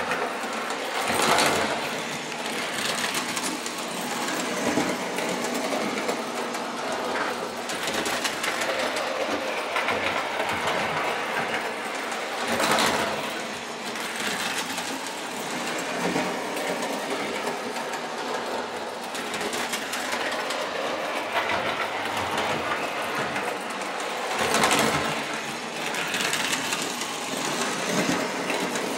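1930s Lionel 249E tinplate toy steam locomotive running on O-gauge track at about 9 volts: a steady whir of its motor and gears with wheels clattering on the rails. The sound swells louder for a moment about every twelve seconds.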